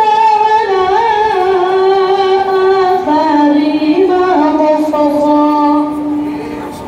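A high-pitched voice chanting Quran recitation (tilawah) in long, drawn-out melodic notes with ornamented turns. The pitch steps down about three seconds in, and the held note fades away near the end.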